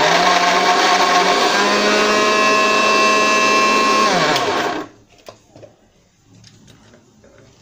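Electric mixer grinder (Koryo) with a steel jar running at full speed, blending papaya chunks into a thin puree, its motor whine stepping up slightly in pitch partway through. After about four seconds it is switched off and winds down with a falling whine, followed by a few faint clicks as the jar lid is handled.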